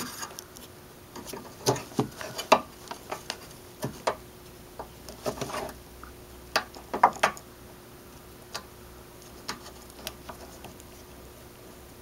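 Irregular light clicks and small knocks of a Saturn S-series door lock cylinder being wiggled off its blue plastic arm, with clusters about two and a half and seven seconds in.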